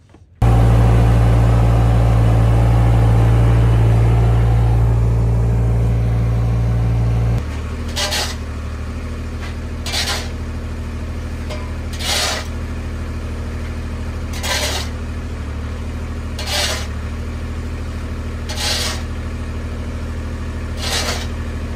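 Avant 423 compact loader's diesel engine running steadily, louder for the first seven seconds or so, then quieter. From about eight seconds in, a shovel scrapes into wood chips on pavement about every two seconds, seven times.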